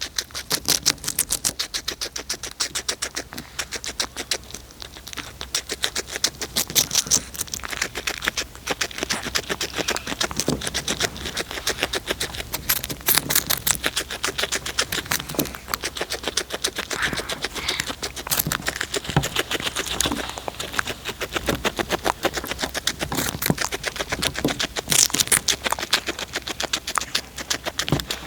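A cat crunching food close to the microphone: a rapid, continuous run of crisp clicks from its chewing.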